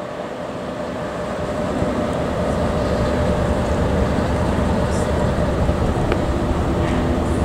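Diesel-electric locomotive running with a low rumble and a steady hum. It grows gradually louder as it draws nearer.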